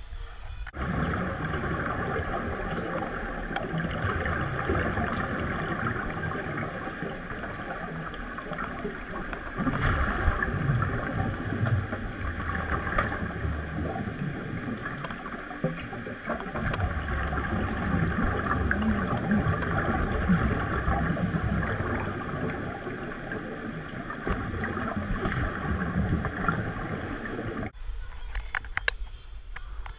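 Scuba breathing heard underwater: a steady rushing hiss from the regulator, with low rumbling bursts of exhaled bubbles every few seconds. It cuts in abruptly about a second in and cuts out abruptly near the end.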